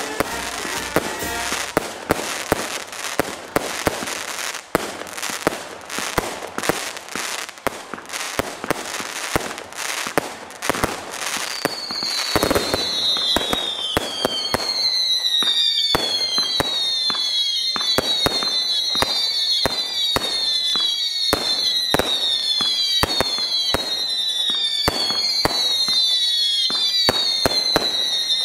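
Fireworks display: a rapid, continuous string of bangs and crackles. From about twelve seconds in, many overlapping falling whistles join the bangs.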